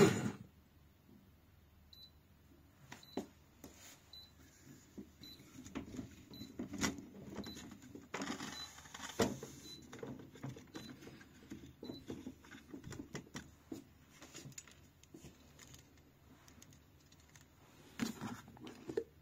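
Faint short electronic beeps, about two a second for several seconds, from the Olivo soy-milk maker's control panel, with scattered light clicks. Near the end, a cluster of knocks as its plastic lid and handle are gripped to open the jug.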